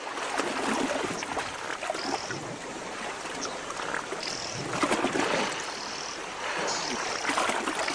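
River water splashing and churning as a hippopotamus surges through the shallows, swelling and easing several times.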